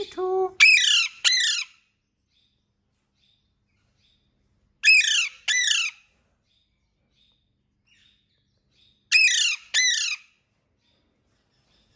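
Alexandrine parakeet squawking loudly: three pairs of harsh, falling calls, about four seconds apart, with a short lower note just before the first pair. These are calls from a lone bird calling out.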